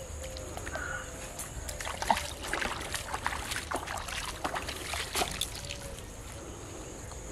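Pond water splashing and sloshing in a quick run of sharp splashes, loudest about two seconds in, as a hooked fish thrashes at the surface on a rod and line.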